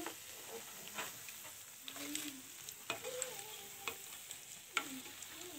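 Hot oil sizzling around piyaji fritters in a pan, with light clicks of a metal slotted spoon against the pan about once a second as the fritters are lifted out.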